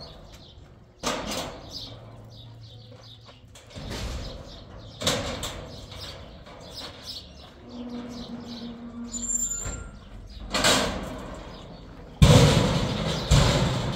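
Dry wheat stalks rustling and crunching in a series of swishes, one every second or two, loudest near the end. A bird chirps briefly about two-thirds of the way through.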